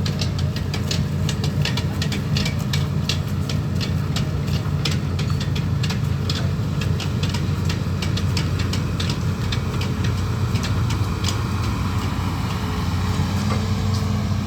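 Amphibious excavator's diesel engine running steadily, with many rapid irregular clicks and ticks over it for the first eleven seconds or so.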